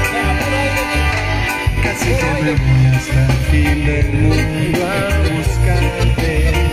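Live band playing an upbeat Latin dance song through the stage sound system: a bass line in repeated notes, guitar and drums keeping a steady beat, with a singing voice.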